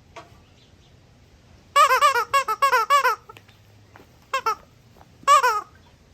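A parrot's squishy squeaky toy squeezed repeatedly: a quick run of squeaks, then two more single squeaks near the end.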